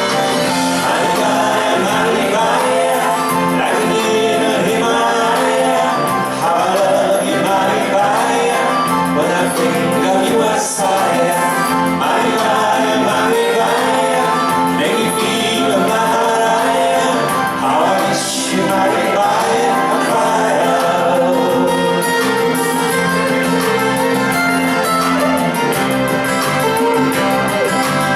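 Live pop band playing a song with lead vocals, guitars and drums, at a steady, loud level.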